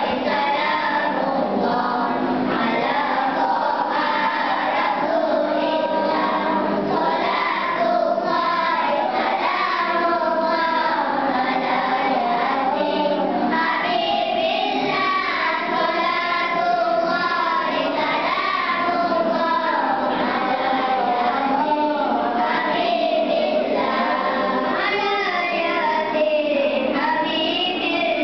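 A group of young children singing a nasheed together in unison, one continuous melody without pauses.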